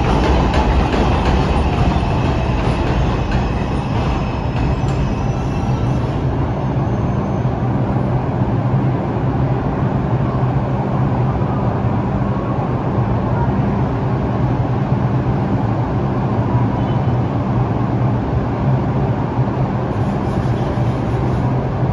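New York City subway train on the 4 line slowing at the station: its motors whine with a falling pitch over the first few seconds, with wheel clatter. A steady low hum then continues.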